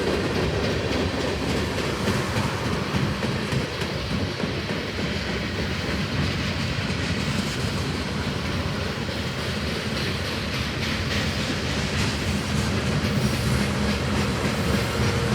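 Long freight train's cars rolling past, a steady rumble with the wheels clicking over rail joints.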